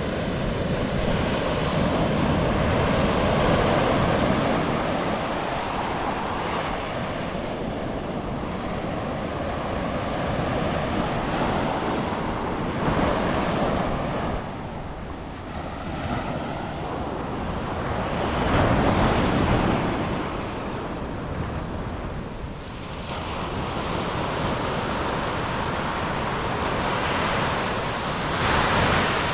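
Ocean surf: waves breaking and washing up the beach, the rush swelling and easing every several seconds, with wind buffeting the microphone.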